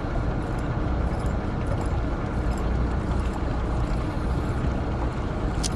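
Steady low rumble and hiss of a small fishing boat at sea: the boat's engine running, with wind and water noise.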